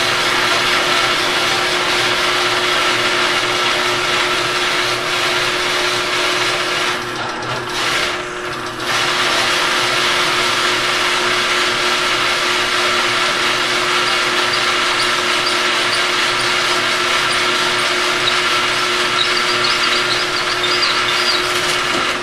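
Craftsman drill press running slowly, about 150 RPM, driven by an added 1/3-horsepower sump pump motor through a 4-to-1 belt reduction, its 3-inch hole saw cutting into half-inch plywood: a steady motor hum with the saw's cutting noise. The cutting noise eases off twice briefly, about seven and eight and a half seconds in.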